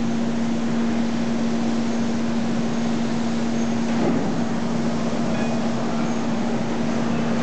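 Steady machine hum holding one low pitch over the even background noise of a factory floor, with a faint knock about four seconds in.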